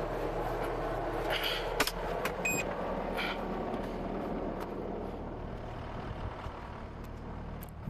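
CASE TR270B skid steer's engine running steadily, heard from inside the cab, with a few light clicks and knocks; it fades a little near the end.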